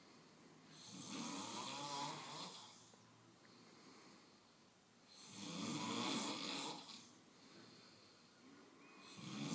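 Slow, regular snoring: three long snores about four seconds apart, each lasting about two seconds.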